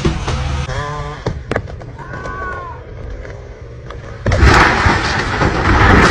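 A low engine hum stops early on and short shouts are heard. About four seconds in comes a loud rushing crash lasting nearly two seconds.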